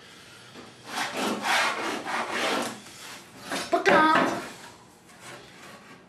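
Rubbing and scraping on a plywood board as a long steel straightedge is slid into place and worked along it, with a sharper, louder scrape about four seconds in.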